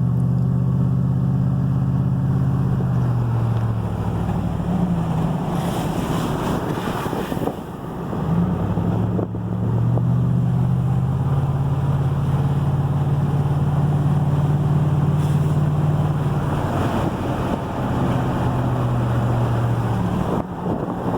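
Vehicle engine hum and road noise heard from inside the cab while driving. The engine note drops about 3 seconds in and rises again around 8 to 10 seconds, as with a change of speed or gear. Brief hissing surges come about 6 and 15 seconds in.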